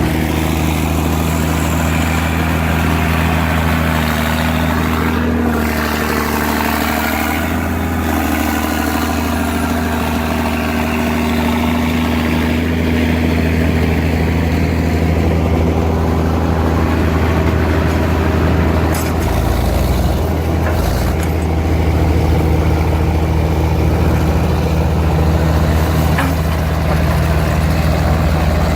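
Heavy engine of antique construction equipment running steadily, its note shifting briefly about five to eight seconds in.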